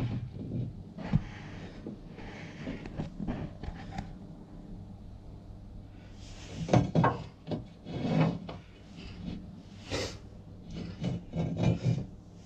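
Irregular rubbing, scraping and knocking as a bracket is handled and worked into place against the boat's hull beside the engine, with a low steady hum underneath.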